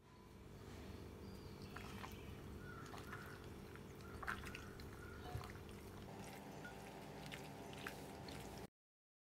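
Faint wet squishing and squelching of raw chicken pieces being worked together by hand with dry spices in a glass bowl, with a few sharper squelches and clicks, over a steady low hum.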